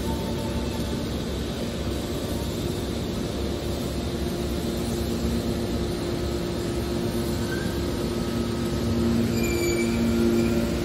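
Hydraulic metal scrap baler running: a steady machine hum with two held low tones from its pump and motor, which grows louder about nine seconds in. A few faint short squeaks come near the end.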